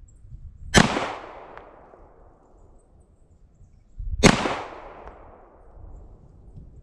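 Two shots from a CZ Shadow 2 9mm pistol, about three and a half seconds apart, each trailing off in a long echo.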